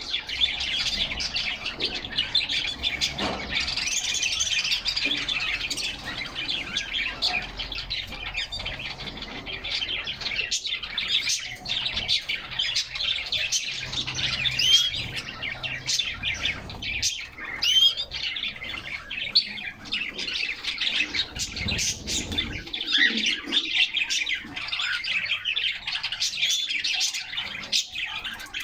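Pet canaries chirping and singing, a near-continuous stream of quick high calls and trills, with scattered sharp clicks.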